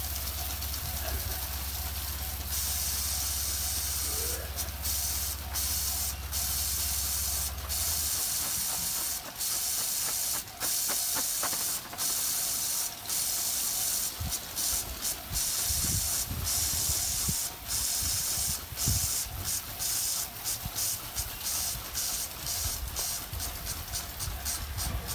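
Steady hissing wind noise, with blowing snow buffeting the microphone in low gusts about halfway through and the hiss cutting out briefly again and again. A low steady hum stops about a third of the way in.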